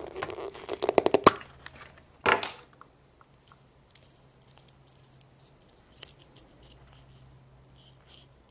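Small plastic toy and wrapper being handled: a dense run of crinkling and clicking for about the first second, one louder rustle about two seconds in, then only faint scattered clicks over a steady low hum.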